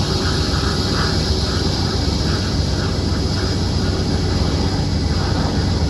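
Airbus A319 jet engines running steadily as the airliner taxis, a constant low rumble with a whine above it.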